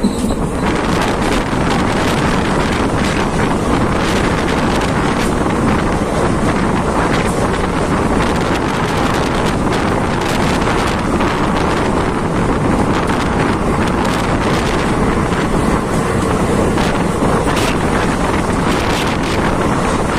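Loud wind buffeting the microphone at the open door of a moving passenger train, over the train's steady running rumble.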